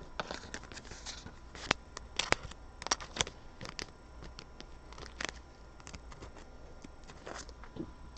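Trading cards being handled and sorted by hand: scattered light clicks and rustles as the cards slide and tap against each other, with a few sharper taps about two to three seconds in and near five seconds.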